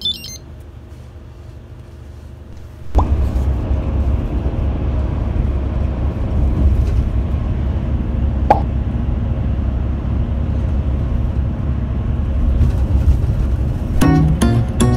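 Cabin noise inside a moving intercity bus: steady low engine and road rumble. It is a quieter hum for the first three seconds, then much louder from about three seconds in, with one short click a little past the middle.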